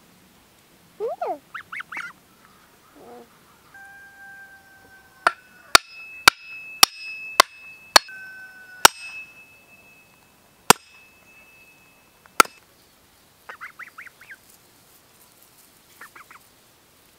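Domestic geese honking, then an axe's back hammering a wooden stake into the ground: nine sharp strikes, each leaving a metallic ring from the axe head. More short honking calls follow near the end.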